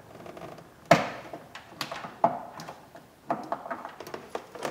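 Scattered plastic clicks and knocks of hands working behind a car's carpeted trunk liner, twisting a taillight bulb socket out of its housing. A sharp click about a second in is the loudest.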